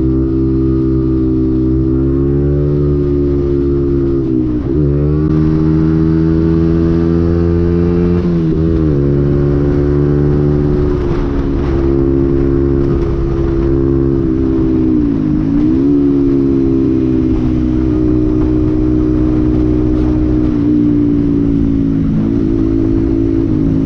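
Motorcycle engine running at a steady speed, its note dipping briefly and coming back up about four times.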